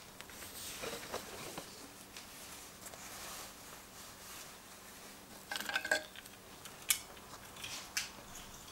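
A keyring clinking and jingling as it is picked up out of a wooden crate: a short cluster of clinks a little past halfway, a sharper single clink about a second later and a fainter one near the end, over faint rustling.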